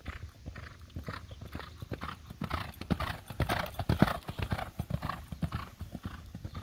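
A racehorse galloping on a dirt track: a fast, rhythmic drumming of hoofbeats that grows louder as the horse passes close by about four seconds in, then fades as it gallops away.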